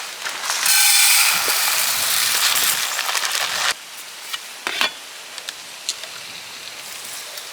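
Water poured out in a loud hissing rush for about three seconds that stops suddenly, followed by a few light ticks.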